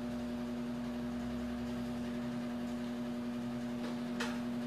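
Steady hum with a constant low tone, like an appliance or fan running in a small room, and one short click about four seconds in.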